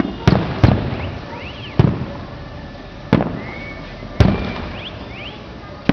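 Aerial firework shells bursting: five sharp booms at uneven gaps of about a second, each dying away in a short rumbling tail, with faint short rising whistles between them.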